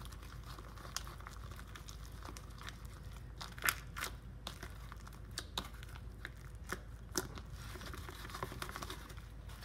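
Homemade glue slime being kneaded and squeezed by hand in a plastic bowl: faint, irregular sticky clicks and pops, with a few louder ones about four seconds in and again about seven seconds in.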